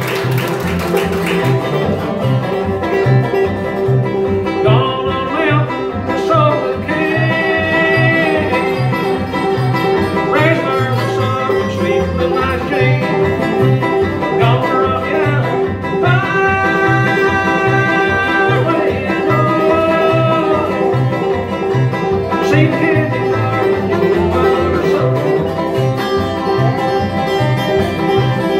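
A bluegrass band playing live: a five-string banjo picking over a steady upright-bass beat and guitar, with a fiddle carrying sliding, sustained melody notes.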